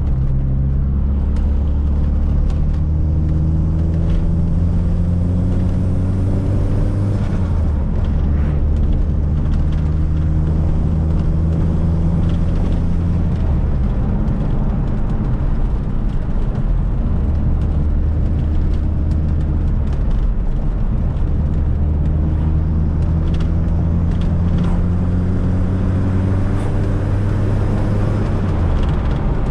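Fiat Coupe 16V Turbo's turbocharged four-cylinder engine pulling through the gears. Its note rises steadily, then drops sharply at each gear change, several times over, with steady road noise underneath.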